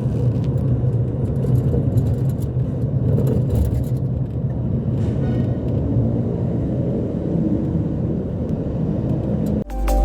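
Steady low rumble of a car driving, road and engine noise; it cuts off abruptly just before the end.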